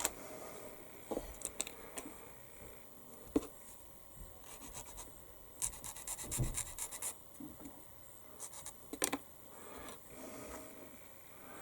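Small plastic model-kit parts and tools handled at a workbench: scattered light clicks, scratching and rubbing, with a quick run of ticks a little past the middle and a few sharper knocks.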